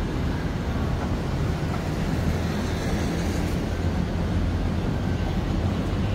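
Busy city-street traffic: a steady low rumble of passing vehicles, with a faint higher hiss briefly in the middle.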